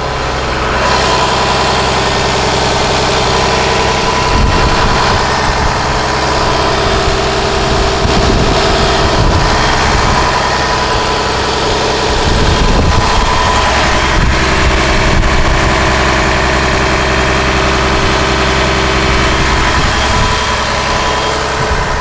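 Cummins ISC 8.3-litre turbo diesel inline-six running at a steady idle, heard close at the bus's open rear engine compartment.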